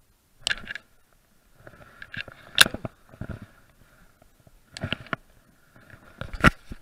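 Close handling noise as fly line is stripped in by hand: four clusters of rustling and scraping about every two seconds, each ending in a sharp knock.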